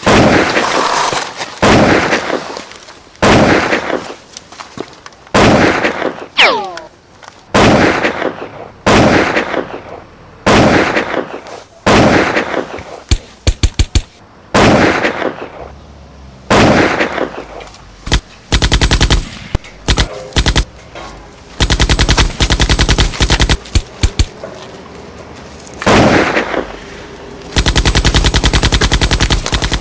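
Gunfire: single rifle shots about a second apart, each with a long echoing tail. From about two-thirds of the way through come rapid bursts of automatic fire, the last one lasting about two seconds.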